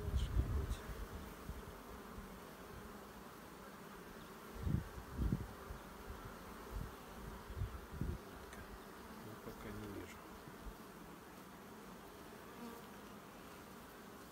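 Honey bees humming steadily over an open hive, with a few low bumps at the start and around five and eight seconds in.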